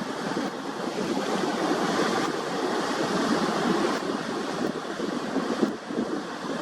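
Steady rushing of wind and water, as heard aboard a boat under way, with no distinct engine note.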